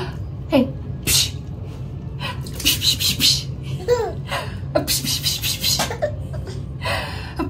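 Baby girl giggling in the bath: repeated breathy bursts of laughter with short falling squeals.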